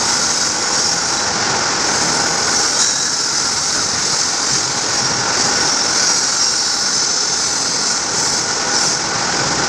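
5-axis CNC pipe bending machine running, giving a steady mechanical noise with a strong hiss.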